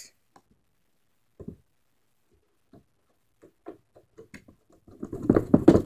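Fingers poking homemade slime, giving small pops and clicks: a few scattered at first, coming quicker, then a dense, louder run of pops near the end.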